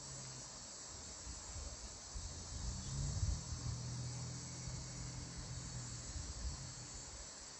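Steady, high-pitched chorus of insects over a low rumble, with a faint low hum in the middle.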